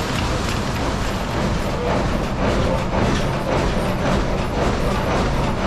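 Machinery of an old-fashioned 1800s sawmill running: gears, shafts and log carriage making a steady mechanical rumble and rattle.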